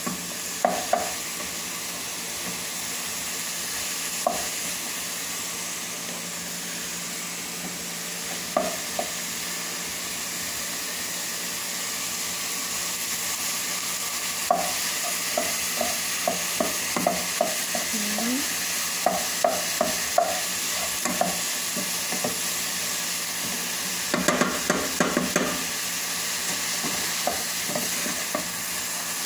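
Ground chicken with onion and green pepper sizzling steadily in a nonstick frying pan while a wooden spatula stirs it, knocking against the pan in runs of quick taps, several a second, thickest in the second half.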